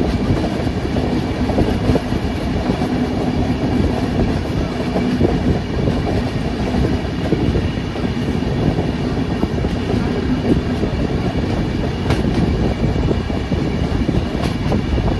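Indian Railways passenger train running at speed, heard close from the open doorway of a coach: a steady rumble of wheels on rail with a few sharper clacks near the end.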